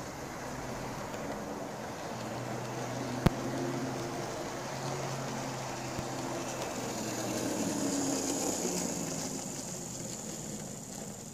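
Lima OO gauge model Class 42 Warship diesel locomotive with four coaches running on the layout's track: the electric motor whirring and the wheels running on the rails, growing louder as the train comes past and fading near the end. A single sharp click about three seconds in.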